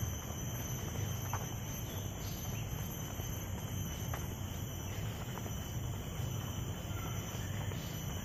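Steady outdoor background of a low rumble with a faint, steady, high-pitched insect drone over it, and a few faint ticks.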